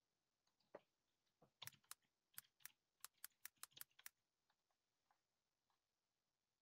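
Faint typing on a computer keyboard: a quick run of about a dozen key clicks over about two and a half seconds, with a few fainter scattered clicks before and after.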